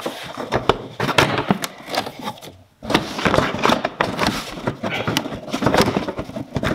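Plastic inner wheel-arch liner being worked into place behind the wheel-arch edge: scraping, rustling and clicking of plastic against the car body, with a short break about two and a half seconds in.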